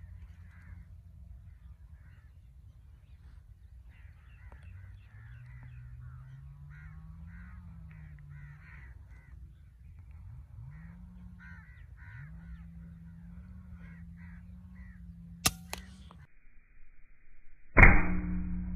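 Birds calling in short scattered bursts over a low rumble with a hum that rises and falls. Near the end an Artemis P15 PCP air rifle fires once with a sharp crack, the loudest sound, after a fainter sharp click a couple of seconds earlier.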